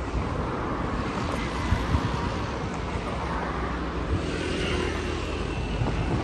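Airbus A380-861 on final approach: the distant, steady rumble of its four Engine Alliance GP7200 turbofans, mixed with wind buffeting the microphone.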